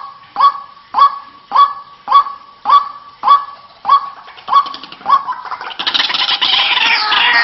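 White-breasted waterhen (ruak-ruak) calls used as a bird lure. A single sharp note repeats about twice a second, then from about five and a half seconds in it breaks into a loud, dense run of overlapping falling calls.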